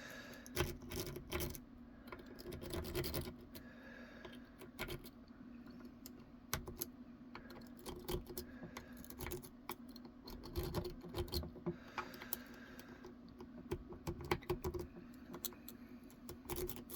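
Lock picks clicking and scraping in the keyway of a steering wheel lock as it is picked open, in irregular small bursts over a steady low hum.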